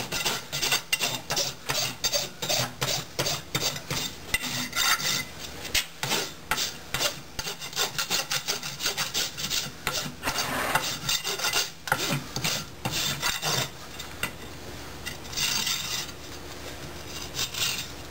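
Farrier's hoof rasp filing a horse's hoof in quick repeated strokes, with a short pause partway through: the finishing rasp of a shoeing job.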